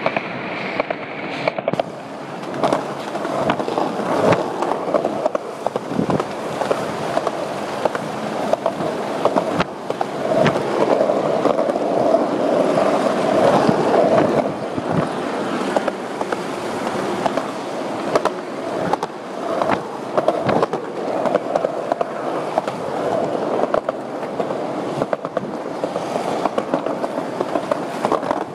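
Several skateboards rolling over concrete pavement, a continuous gritty wheel rumble broken by frequent sharp clicks and knocks.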